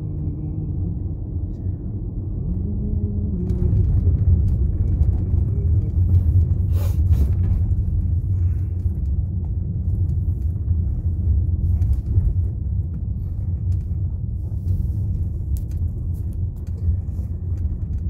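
Steady low rumble of a taxi driving along a narrow country lane, engine and tyre noise heard from inside the cabin, with a few brief knocks from the road, the most noticeable about seven seconds in.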